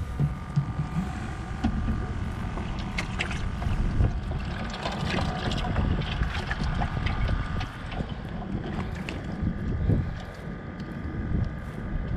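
Wind buffeting the microphone, with clicks and knocks of a plastic bait bucket's lid and handling as live shrimp are taken out by hand. A faint steady high hum runs underneath from about two seconds in.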